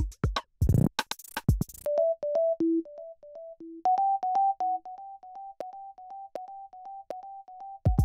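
Electronic background music: a drum-machine beat for about the first two seconds, then the drums drop out and a synthesizer plays a quick repeating pattern of short notes, with the drums coming back in near the end.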